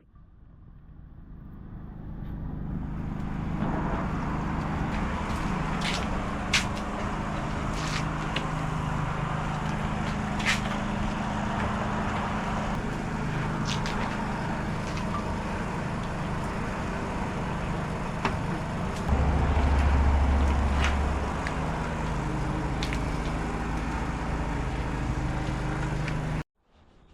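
Steady motor hum with outdoor vehicle noise, a few sharp clicks scattered through it and a deeper rumble swelling for a couple of seconds past the middle; it fades in at the start and cuts off abruptly near the end.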